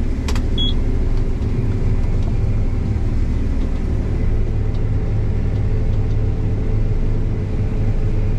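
Heavy farm machinery engine running steadily, a low even drone, with a couple of sharp clicks right at the start.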